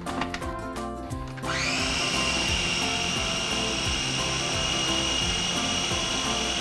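Small KitchenAid food chopper's motor starting about a second and a half in, spinning up quickly to a steady high whine as it purees greens and liquid into a paste.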